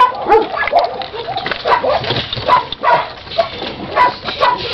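Young puppies whining and squeaking in short, high cries, about two a second, while nursing.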